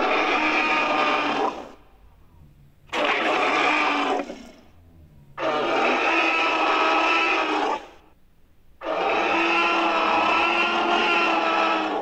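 Sound-effect Tyrannosaurus rex calls: four long, steady-pitched bellows, each lasting about one and a half to three seconds, with short pauses between them.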